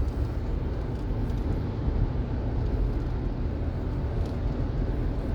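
Steady low road rumble of a moving car, tyres and engine heard from inside the cabin.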